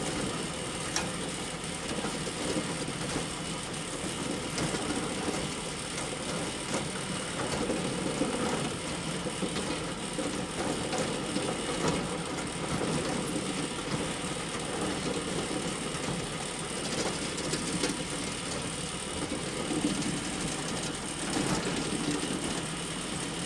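Hay bale elevator running steadily: a continuous mechanical clatter of the conveyor with many small clicks throughout.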